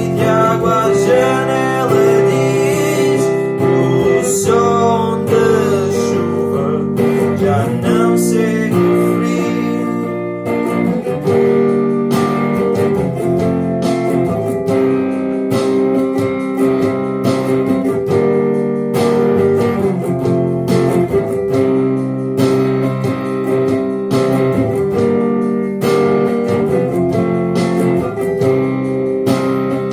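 Acoustic guitar playing an instrumental passage of a song: strummed chords in a steady rhythm, with a gliding melody line over the first several seconds.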